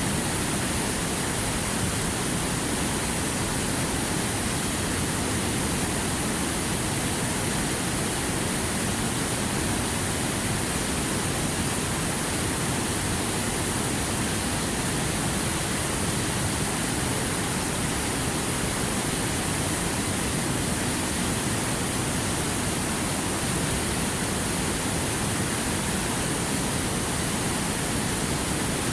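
Waterfall: a steady, unbroken rush of falling water, even throughout with a bright hiss on top.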